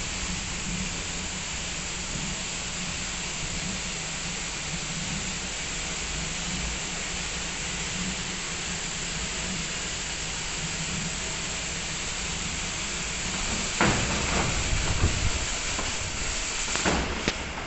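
WashTec SoftCare 2 Pro rollover car wash applying foam wax: a steady hiss of spraying over a low machine hum. About fourteen seconds in, the rotating brushes start and slap against the car with loud, irregular thumps and splashing water.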